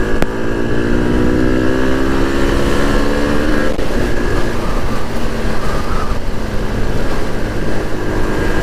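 SYM VF3i 185 scooter's single-cylinder engine pulling under throttle, its pitch rising slowly for the first three or four seconds, then dropping back and running steady. Heavy wind noise on the microphone runs underneath.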